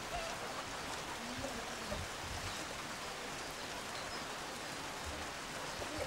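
Steady rushing hiss of flowing water.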